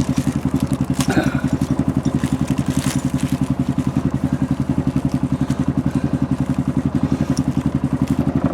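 Yamaha Rhino 660 side-by-side's single-cylinder engine idling with a steady, even pulse, with a few light clicks about one second and three seconds in.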